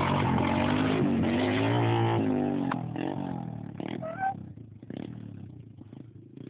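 Pit bike engine revving hard as it wheelies past, its pitch rising and falling, then fading away after about two and a half seconds to a faint distant engine.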